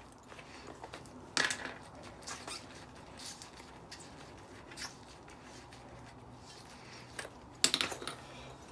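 Scattered light clicks and taps of small metal parts being handled while a decking light is taken apart, with a short burst of louder clatter near the end.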